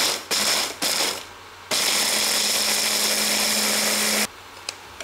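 Electric mini chopper grinding almonds with sugar and cinnamon. Its motor gives three short pulses in the first second or so, then runs steadily for about two and a half seconds and stops abruptly.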